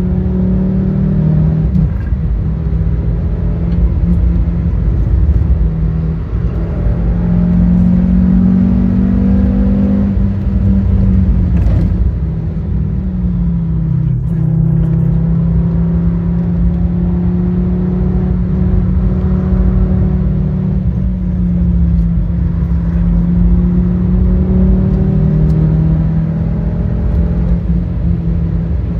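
2004 Fiat Stilo Abarth's 2.4-litre 20-valve five-cylinder engine pulling hard under load. Its note climbs with the revs and drops back sharply about ten seconds in and again near the end, over a deep road and tyre rumble.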